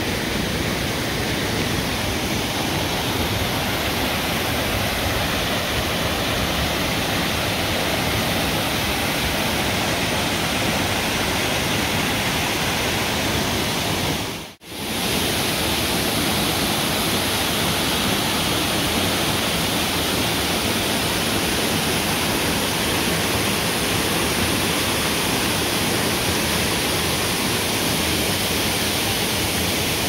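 Steady rush of waterfalls and cascading stream water. It drops out for a moment about halfway through, then comes back.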